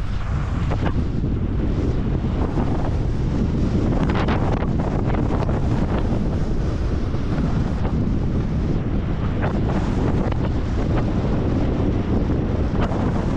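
Wind buffeting the microphone of a helmet-mounted camera during a downhill ski run, a steady heavy rumble, with skis hissing and scraping over the snow now and then.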